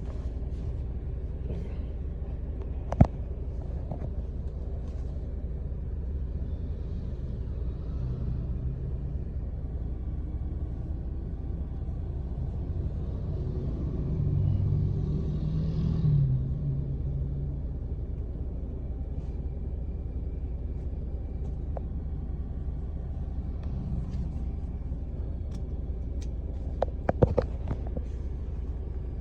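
Steady low rumble of a car cabin on the move, with a sharp click about three seconds in and a few clicks near the end.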